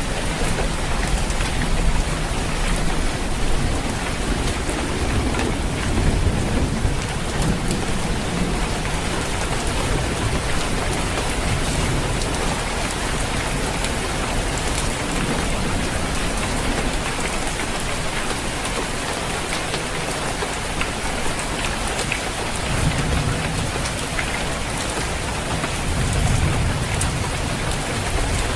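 Steady, heavy rain falling on a roof, a dense even patter throughout. A low rumble of thunder swells up twice near the end.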